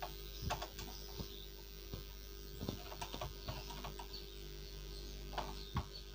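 A screwdriver working out the small screws from the plastic underside of a toy remote-control car: scattered light clicks of metal on plastic, over a faint steady hum.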